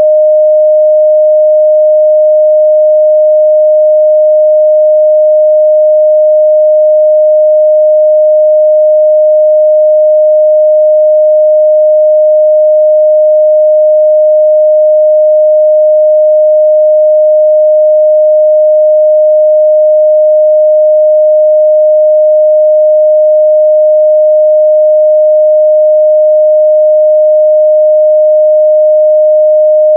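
A steady, loud 614 Hz pure sine-wave test tone, one unchanging pitch.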